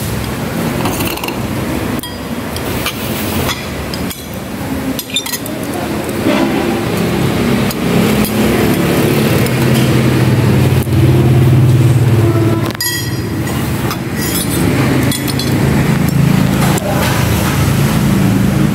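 Busy eatery background: a steady traffic-like rumble of passing engines, swelling in the middle and dropping sharply later on, with scattered clinks of spoons and bowls on a steel table.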